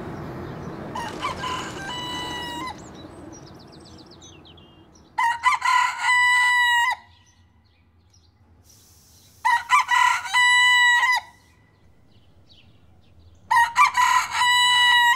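A broiler-variety rooster crowing: a fainter crow about a second in, then three loud crows about four seconds apart. Under the first few seconds a passing jet airliner's rumble fades away.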